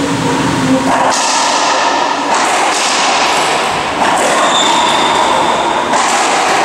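Racquetball rally in an enclosed court: thuds from the play under a steady, loud rushing noise that fills the court.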